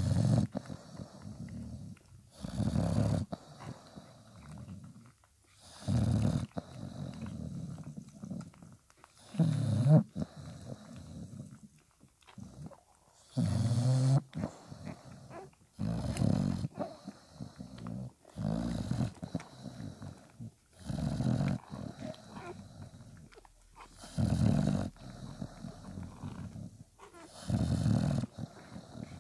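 English Bulldog snoring as it lies nursing, about ten rasping breaths roughly three seconds apart.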